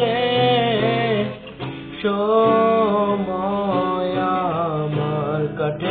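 A male voice sings a slow Bangla love song, holding long notes, over acoustic guitar accompaniment. There is a short breath pause about a second and a half in.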